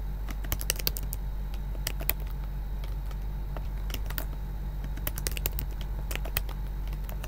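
Computer keyboard typing: irregular runs of keystroke clicks, with pauses between them, over a steady low hum.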